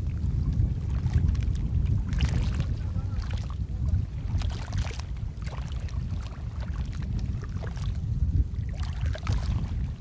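A paddle dipping and splashing in the sea from a wooden canoe, a stroke every two seconds or so, over a steady low rumble of wind on the microphone.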